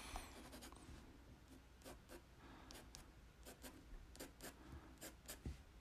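Faint scratching of a pencil on paper in a run of short, quick, irregular strokes.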